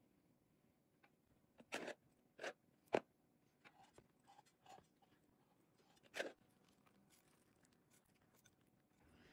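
Sparse sounds of utensils handling a layer cake: a couple of short scrapes about two seconds in, a sharp click a second later, and another short scrape about six seconds in, with a few faint ticks between.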